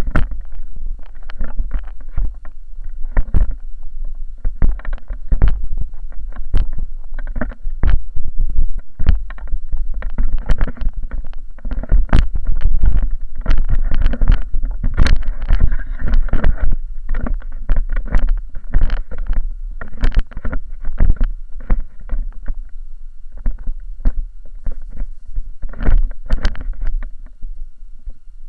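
Inline skate wheels rolling over rough asphalt: a heavy, continuous rumble broken by frequent irregular knocks and clatter.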